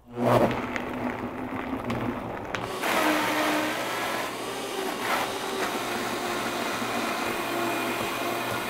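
High-speed countertop blender starting up and blending frozen banana, frozen blueberries and almond milk. The contents are pushed down with the blender's tamper. About three seconds in, the blender gets louder and higher-pitched, then runs steadily.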